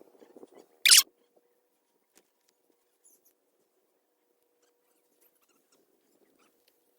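A single shotgun shot about a second in, one sharp loud blast.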